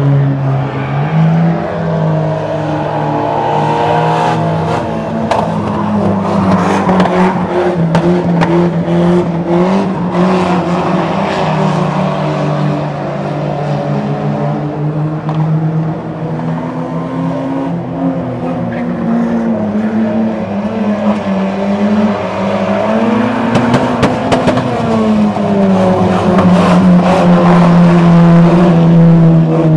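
Several banger racing cars' engines running hard around a short oval, their pitch rising and falling as they accelerate and lift off, with scattered short knocks throughout.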